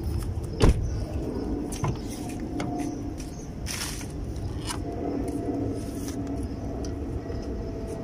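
Steady low engine rumble with a faint hum that drifts in pitch, from a passing motor vehicle or boat. A sharp knock comes just under a second in, and a smaller one about two seconds in.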